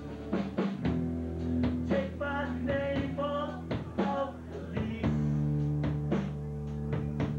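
Rock band playing live: electric guitars, bass and drum kit keep up a steady beat, and a male voice sings a line for a couple of seconds in the middle.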